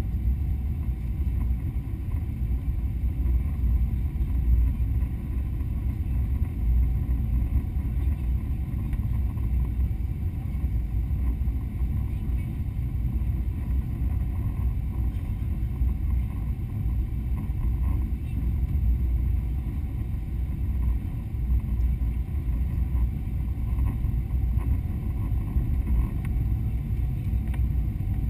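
Steady low rumble of engine and airflow heard inside the cabin of a Boeing 777-200 descending on final approach with its flaps extended.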